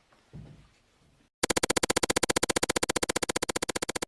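Electronic synthesizer sound effect: a loud, rapidly pulsing tone, about fifteen pulses a second, starting abruptly about a second and a half in, after a short falling voice-like sound.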